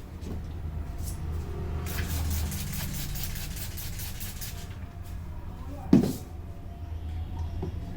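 Head massage strokes: a quick run of rapid hand slaps lasting about two and a half seconds, then a single loud thump about six seconds in.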